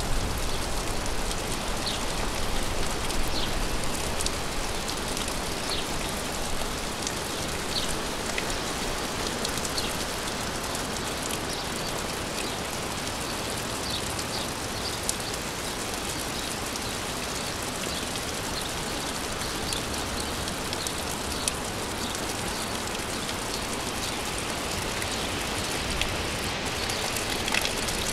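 Gentle rain falling steadily: an even hiss with scattered sharper drips. A low rumble swells a little near the start and again near the end.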